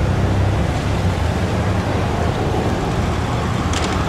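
Marked police Range Rover Vogue driving past on a city street, its engine and tyres making a steady road rumble. A brief sharp high-pitched tick comes near the end.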